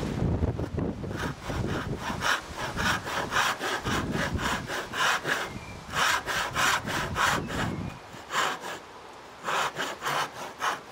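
Disston No. 5 backsaw, freshly filed with 6 degrees of rake and 5 degrees of fleam, cutting through a board in quick, even rasping strokes. The strokes stop briefly twice: a little past halfway and again about three quarters through.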